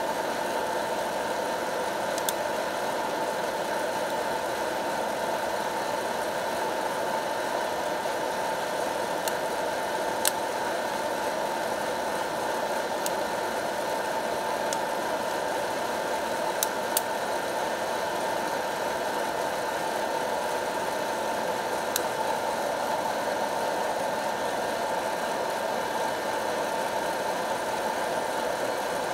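Hot-air popcorn popper roasting coffee beans: its fan blows steadily, with a few sharp clicks scattered through.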